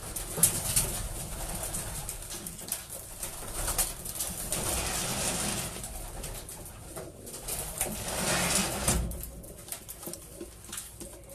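Racing pigeons cooing in a loft, with loud rustling, scuffling and wing flapping as one pigeon is caught and handled. The rustling dies down about nine seconds in.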